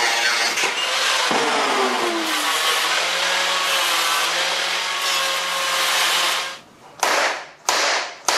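Angle grinder with a cut-off disc cutting steel, a loud steady grinding with a motor whine that drops in pitch as it bites. About six and a half seconds in it breaks off, followed by two short bursts of the same noise.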